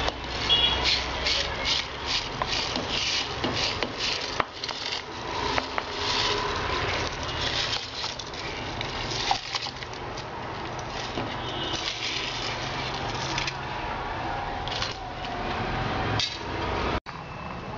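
Rapid rubbing and scraping strokes of kitchen work, about three a second for the first few seconds, then slower and more irregular.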